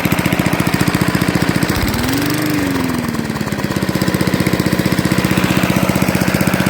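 Small push lawn mower engine running steadily with a rapid, even firing beat. About two seconds in, it speeds up briefly, then settles back to its earlier speed.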